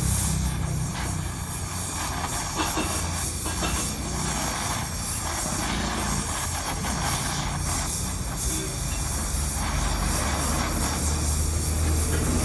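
Electric welding arc on aluminium, running continuously with a steady low buzz and a crackling hiss.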